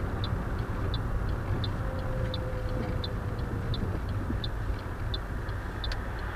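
A car's turn-signal indicator ticking evenly, about three ticks a second, over the steady low rumble of engine and tyres inside the cabin, signalling a left turn.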